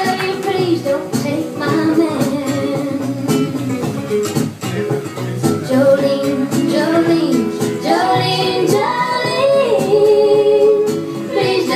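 A recorded pop song with a female lead vocal and a backing track with a steady beat, played loud over a bar's sound system.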